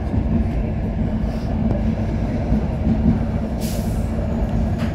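Passenger train running, a steady low rumble, with a short hiss about three and a half seconds in.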